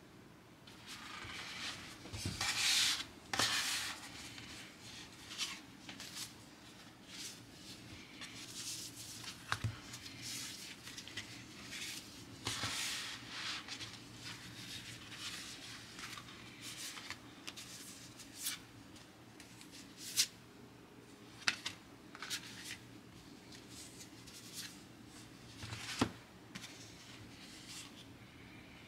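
Stiff paper colour swatch cards handled by hand: papery rustling and sliding as they are flipped through and shuffled, with sharp card flicks now and then.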